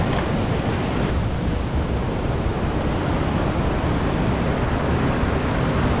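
Steady rushing roar of a large waterfall in monsoon flow, with wind rumbling on the microphone.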